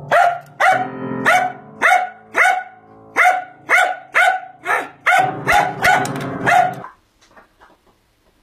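A dog barking over and over, about two barks a second, while its paws press the piano keys so that low piano notes ring under the barks. The barking stops about seven seconds in.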